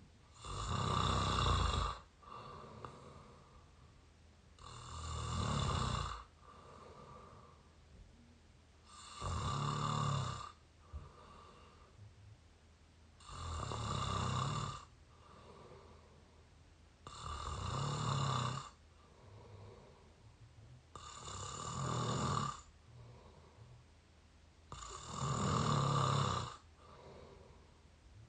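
A person snoring through an open mouth, recorded up close: seven loud snores, about one every four seconds, each lasting about a second and a half, with a softer breath between them.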